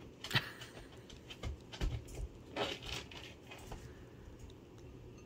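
Kitten lapping cream from a plate: a run of irregular wet licks, smacks and small clicks of its mouth at the plate's edge, busiest in the middle.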